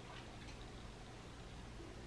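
Near silence: quiet room tone with a few faint small ticks.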